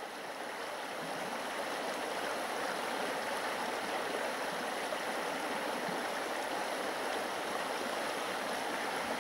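Taiga river running with a steady rush of water.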